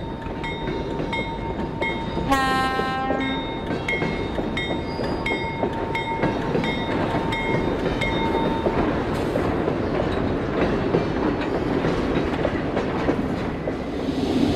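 HO scale model diesel locomotive's sound effects: a steady rumble, a bell ringing about twice a second that stops about two-thirds of the way through, and one short horn blast about two seconds in.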